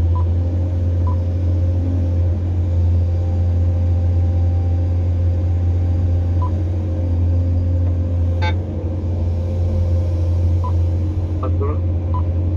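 A Cat 345 hydraulic excavator's diesel engine and hydraulics, heard from inside the cab, running with a steady low drone through a dig-and-load cycle. A few short faint beeps sound over it, and there is one brief sharp noise about eight and a half seconds in.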